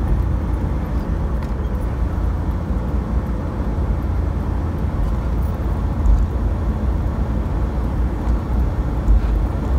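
Maruti Omni's small three-cylinder petrol engine pulling steadily at highway speed, around 80 km/h, heard from inside the cabin as a continuous low drone mixed with road and wind noise. Two louder low thumps come about six and nine seconds in.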